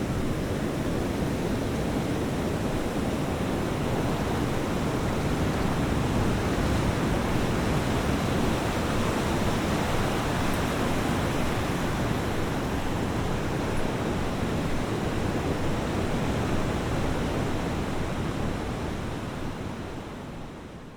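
Ocean waves washing on a beach: a steady, unbroken surf noise that fades out over the last few seconds.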